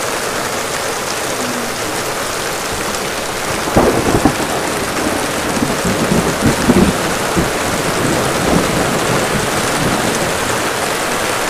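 Heavy rain falling steadily, with water pouring off a roof edge. About four seconds in, a roll of thunder rumbles unevenly for a few seconds.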